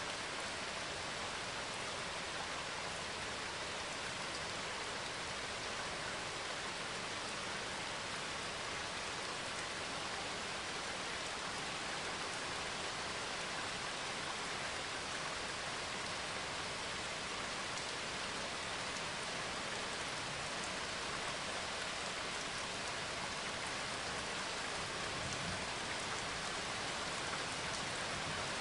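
Steady rainfall hiss, even and unbroken, with no distinct drops or pauses.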